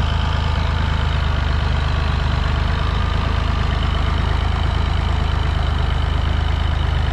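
Massey Ferguson 135 tractor's diesel engine running steadily at an even speed while it pulls against a line of tractors chained behind it.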